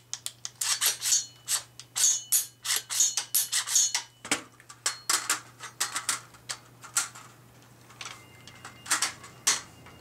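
Rapid metallic clicks and clacks of an AR-15-type rifle with a 5.7 mm upper being worked by hand in a function check, with its PS90 magazine clicked into place on top of the upper. The clicking is dense for most of the time, then thins to a few clicks near the end.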